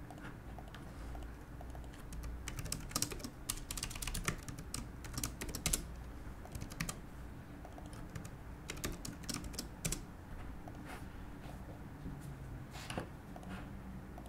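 Computer keyboard typing in quick runs of key clicks, thickest a few seconds in and again near the middle and end, over a low steady hum.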